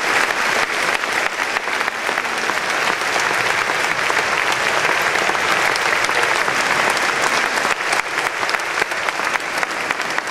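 A large audience clapping steadily: sustained applause made of many dense, overlapping claps.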